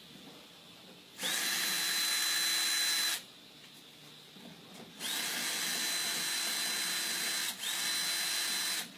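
Power drill-driver backing out Phillips screws: two runs of about two and about four seconds, each starting with a quick rising whine that settles to a steady high whir, the second stopping briefly and restarting near the end.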